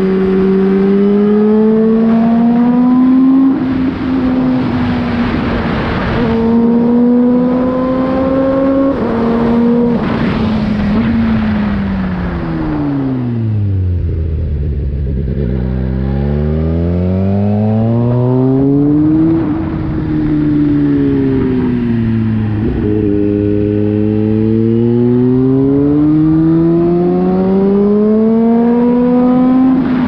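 Car engine running under way, its note climbing and falling with engine speed: it rises and drops twice, winds down to a low drone about halfway through, rises and falls again, then climbs slowly toward the end.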